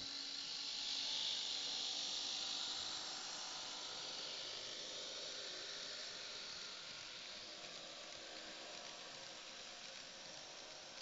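Märklin Z-scale model train, two BR 218 diesel locomotive models in double traction hauling coaches, running on the track: a faint high whirring hiss of small motors and wheels on rails that slowly fades.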